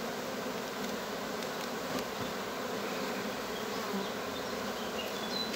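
Honeybees of a queenless colony buzzing steadily over an open hive, with a couple of light clicks.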